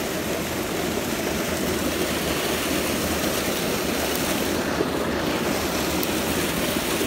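Creek water rushing over a shallow riffle, a steady rush with no breaks.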